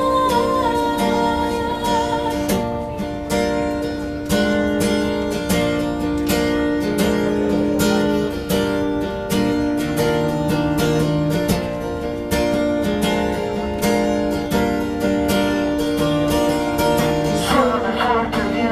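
Acoustic guitar strumming chords through an instrumental break in a song, with a singing voice coming back in near the end.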